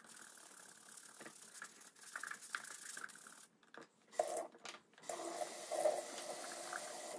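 Small brush scrubbing a leather shoe sole clean with degreaser, then a kitchen sink tap running water over the shoe from about five seconds in, with a few brief dropouts between the two.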